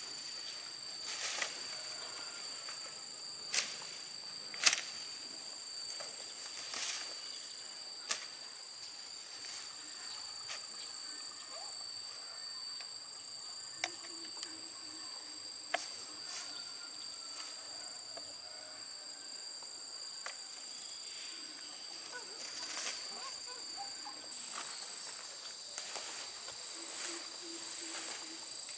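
Insects chirring outdoors, holding two steady high-pitched tones. Scattered sharp clicks and knocks break through, the loudest of them in the first eight seconds.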